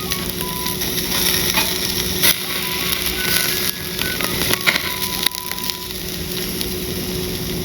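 Charcoal fire crackling and popping, with food sizzling on the grill. A soft melody of short notes plays in the background.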